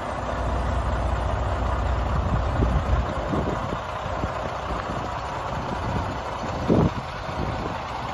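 Freightliner Cascadia semi-tractor's diesel engine idling steadily, with scattered crunching footsteps on gravel and a louder single thump about seven seconds in.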